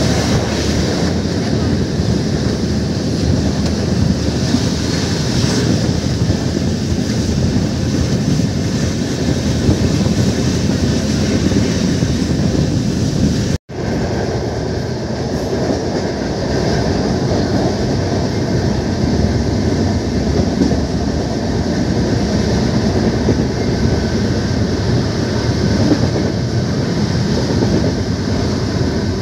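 Steady running noise of the Jan Shatabdi express train under way, heard from inside a passenger coach: wheels rolling on the rails with a clickety-clack. The sound cuts out for an instant a little under halfway through, then carries on.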